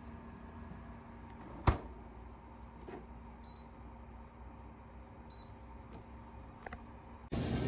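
Two short electronic beeps, about two seconds apart, over a steady low hum, after a single sharp click; just before the end a louder rushing noise cuts in suddenly.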